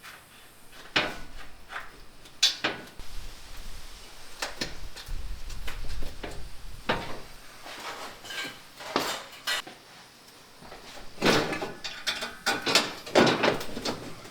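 Irregular metal clanks, knocks and clatter of parts being handled and test-fitted while mounting a Jeep CJ5 dash, with a quick run of knocks near the end.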